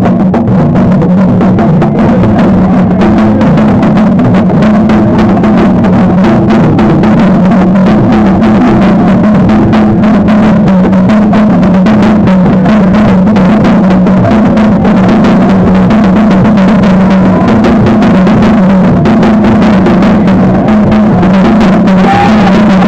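Loud music driven by dense drumming, over a low line that steps back and forth between two notes.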